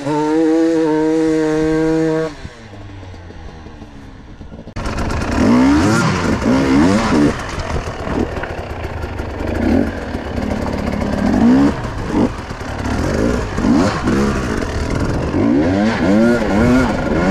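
Enduro motorcycle engine held at steady revs for about two seconds, then dropping much quieter. About five seconds in it comes back loud and revs hard, its pitch rising and falling again and again as the throttle is worked.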